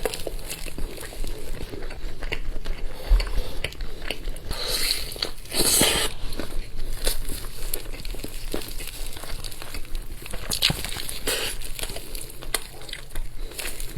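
Close-miked eating: a person biting and chewing meat, with crunching, crackling and many small clicks, and a louder stretch of crunching about five seconds in.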